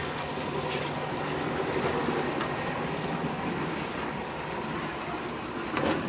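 A fishing boat's engine running steadily under the wash of sea and wind on deck, with a few light knocks of gear being handled, a couple of them near the end.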